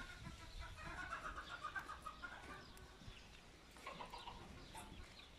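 Faint calls of farmyard birds: a run of short calls in the first two seconds and another about four seconds in.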